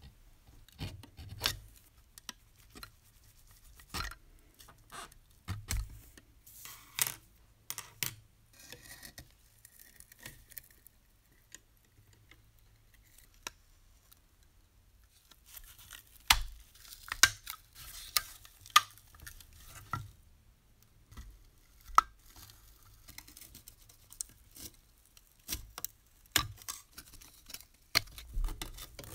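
Small metal tools clicking, tapping and scraping on the rusty metal chassis of a pre-war Märklin model locomotive as it is worked apart: irregular sharp clicks and short scrapes, quieter for a few seconds in the middle, then busier again.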